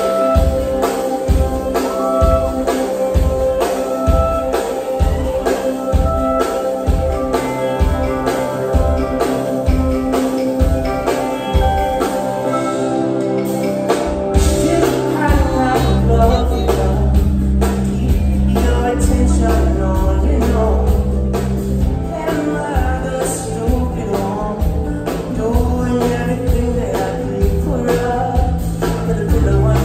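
Live soul band with a male lead vocal, heard from the crowd: a steady kick-drum pulse of about two beats a second, then bass and the full band come in about halfway through.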